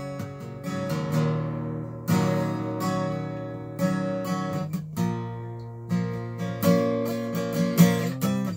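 Acoustic guitar played solo: chords strummed with a sharp accent about once a second and left to ring between strokes.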